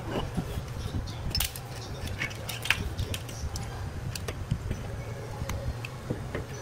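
Scattered small metallic clicks and clinks of hand tools being handled, over a steady low hum.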